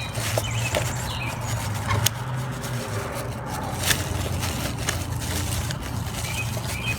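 Steady low engine hum, with a few light clicks and scrapes from the new brake light bulb and its socket being handled and worked into the tail-light housing.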